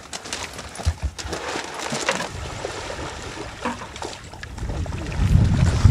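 Water splashing in a catfish pond, with a low wind rumble on the microphone that grows strongest near the end.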